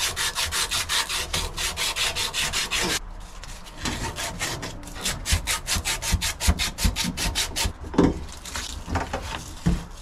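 Copper refrigerant line being scrubbed by hand with an abrasive pad, cleaning it for brazing: quick rasping strokes, about seven a second. The strokes pause about three seconds in, start again, and give way to a few knocks near the end.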